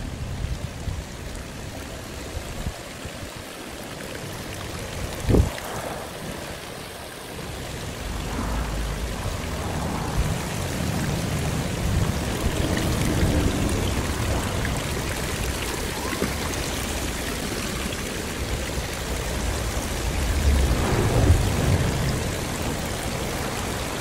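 Running cast-stone garden fountains, water steadily splashing and trickling from bowl to bowl. A sharp knock comes about five seconds in, and a low rumble builds under the water from about eight seconds on.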